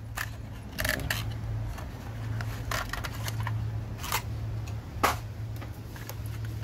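New spark plugs being handled with their cardboard box: scattered light clicks and taps as the metal plugs knock together and slide in and out of the box, the sharpest click about five seconds in. A steady low hum runs underneath.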